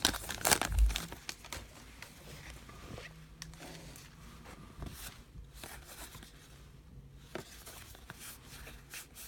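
Wrapper of a Topps Heritage baseball card pack crinkling and tearing for about the first second, then quiet handling of the cards with faint scattered clicks as they are sorted.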